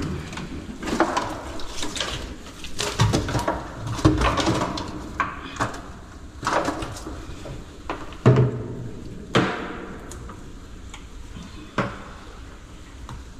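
Irregular knocks, thumps and clatter inside a small open fishing boat as a freshly landed snook and the fishing gear are handled. Some are dull heavy thuds and others sharp knocks.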